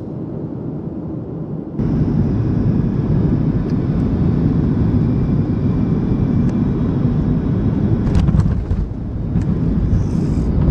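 Jet airliner noise heard from a window seat in the cabin: a steady low rushing that suddenly gets louder about two seconds in, while the plane is on the runway. A few short clicks and rattles come near the end.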